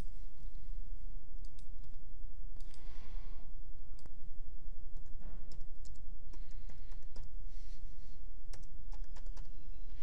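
Typing on a computer keyboard, with scattered sharp key clicks and mouse clicks, over a steady low hum.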